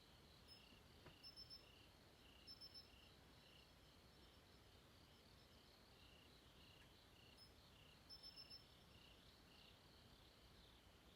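Faint night chorus of crickets: a steady pulsing call about three times a second, with a higher chirper breaking in three times with quick runs of three or four chirps.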